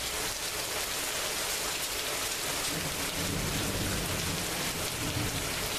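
Steady rain pouring down, a dense even hiss, with a low rumble building in about halfway through.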